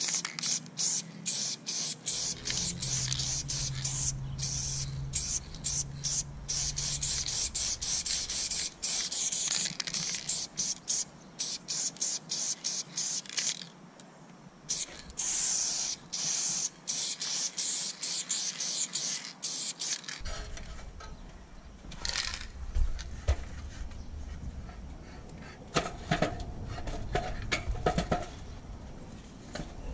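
Aerosol spray-paint can hissing in repeated bursts of a second or so with brief breaks between, as paint is sprayed onto a wall. About two-thirds of the way through the spraying stops, giving way to scattered knocks and handling noises.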